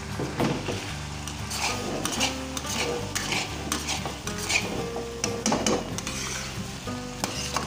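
Steel spatula scraping and stirring daal in a metal karahi, with repeated scrapes against the pan and the sizzle of the frying daal. Background music runs underneath.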